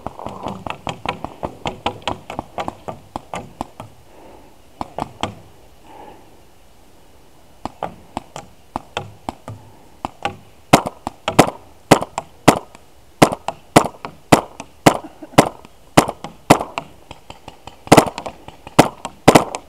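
Paintball markers firing: a quick run of fainter shots in the first few seconds, then after a lull, louder single shots about two a second from about halfway through.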